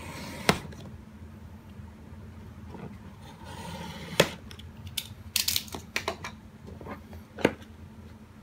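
A tight-fitting box being worked open by hand: scattered sharp clicks and knocks, one about half a second in, one just past four seconds, a quick run of them between five and six seconds and one near the end, with a soft scraping in between.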